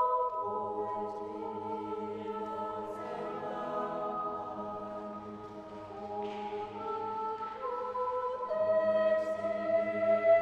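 Mixed a cappella choir singing long sustained chords that move slowly from one to the next, softening in the middle and swelling again near the end.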